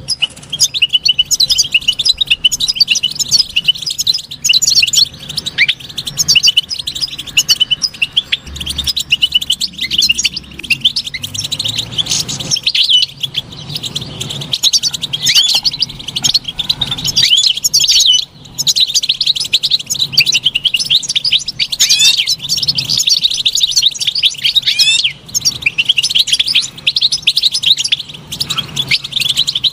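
European goldfinch singing: a fast, unbroken twittering of high chirps and trills, with one short break a little past the middle.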